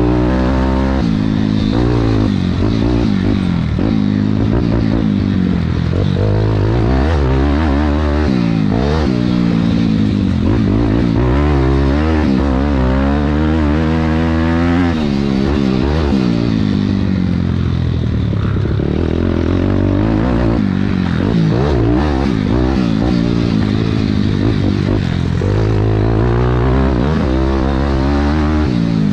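Thumpstar 190 pit bike's single-cylinder four-stroke engine under hard riding, heard onboard: the engine note climbs and falls over and over as the throttle is opened and chopped, with brief breaks in the note.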